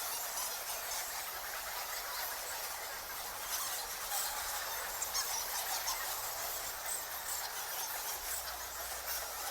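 A large colony of bats squeaking and chittering at once, a dense, continuous high-pitched twittering.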